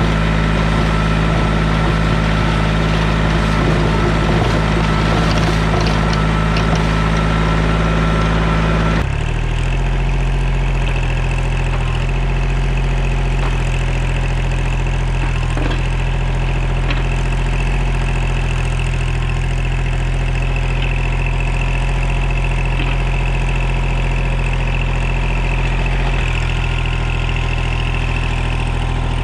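Kubota 25-horsepower compact tractor's diesel engine running steadily. Its note shifts abruptly about nine seconds in and changes slightly again near the end.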